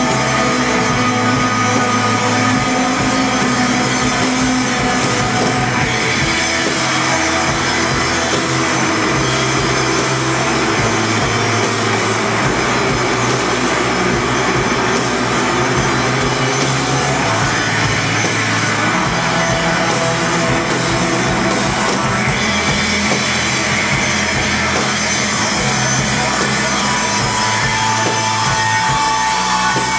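Rock band playing live on electric guitar and drum kit, loud and without a break.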